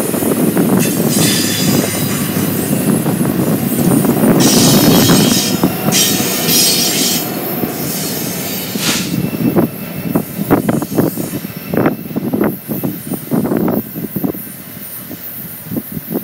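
Double-stack freight train passing close on steel rails: loud rolling wheel noise with bursts of high wheel squeal, as the last cars and a rear BNSF diesel locomotive go by. About nine seconds in it drops and breaks into scattered clacks as the train moves off.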